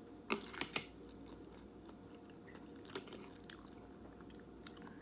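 A person chewing a mouthful of noodles close to the microphone, with a few wet mouth clicks in the first second and one sharper click near three seconds in.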